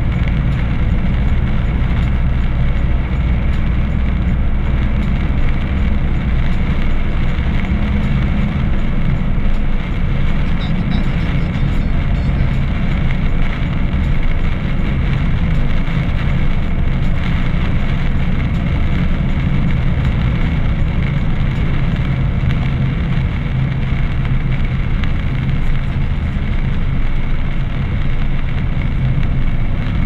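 A car driving steadily on a wet road, heard from inside the cabin: an even rumble of engine and tyre noise.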